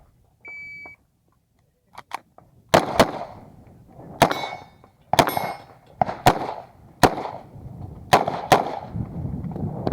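Shot-timer start beep, then 9mm Uzi Pro pistol shots fired in quick pairs and singles, about nine shots. A metallic ringing follows two of them.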